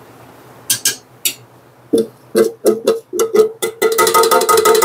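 Tin can knocked against the rim of a large aluminium stockpot to shake out the paste: a few sharp metallic clanks, then a quick run of ringing taps near the end.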